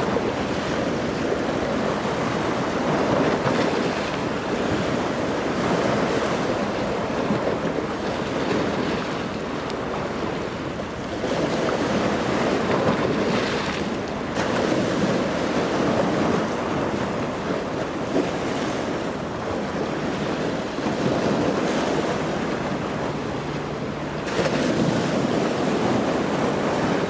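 Waves and wash on the water, with wind buffeting the microphone; the noise swells and eases every few seconds.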